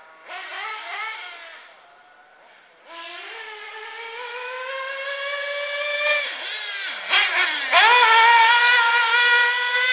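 XRAY XB9 nitro RC buggy's REDS two-stroke glow engine running at high revs with a high-pitched whine. It fades about two seconds in, climbs steadily in pitch as the buggy accelerates, drops as the throttle is lifted around six to seven seconds, then comes back at full throttle and is loudest near the end.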